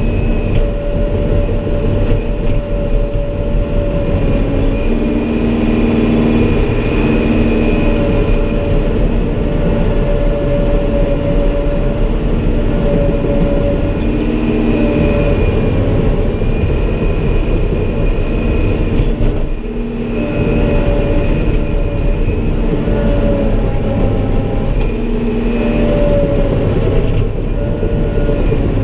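Caterpillar 963 track loader's diesel engine running under load, heard from inside the cab, with a whine that comes and goes as the operator works the bucket. The engine note drops briefly about twenty seconds in.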